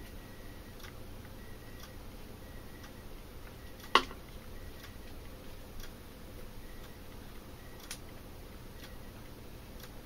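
Small plastic clicks and handling noises from a TV remote's case and rubber keypad being fitted together and pressed, over faint room tone; one sharper click about four seconds in, with a few fainter ticks around it.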